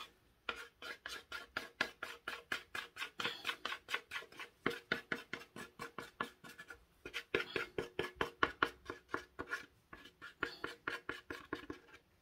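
A stirring stick scraping rapidly against the inside of a plastic jug, about five short strokes a second with brief breaks, as thick, already-thickening Jesmonite is worked out of the jug.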